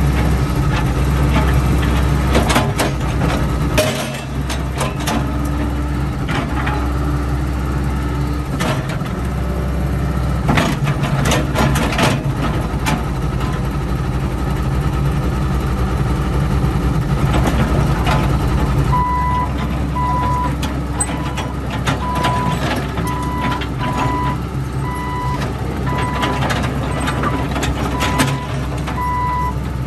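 John Deere 120C excavator's diesel engine running steadily under load as the boom, arm and bucket are worked, with repeated metal clanks from the bucket and linkage. About two-thirds of the way in, a backup alarm starts beeping about once a second.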